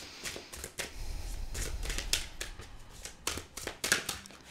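Tarot deck being shuffled by hand: a run of quick, irregular card clicks and rustles.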